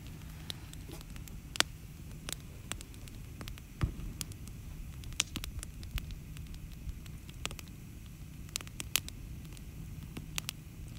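Wood campfire crackling, with irregular sharp pops, the loudest about one and a half seconds in, over a low steady rumble.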